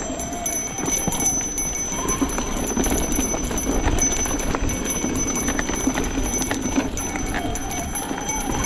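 Mountain bike coasting downhill on a dirt trail: the rear hub ticks steadily while the chain and frame rattle over the bumps, over the rush of the tyres on dirt.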